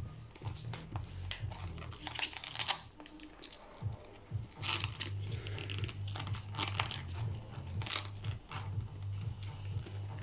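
Bursts of crinkling, rustling handling noise, a few times over several seconds, over a low steady hum.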